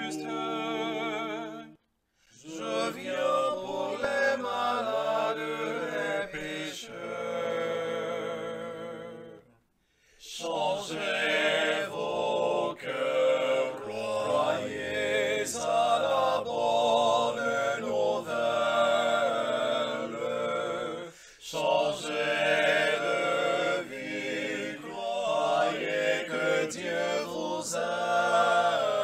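One man's voice, multi-tracked into four-part a cappella harmony, singing a Lenten chant. The singing stops briefly twice, about two seconds in and about ten seconds in.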